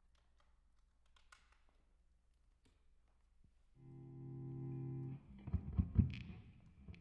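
Near silence with a few faint clicks, then about four seconds in an electric guitar through effects sounds a held, buzzing note, followed near the end by several heavy low thuds.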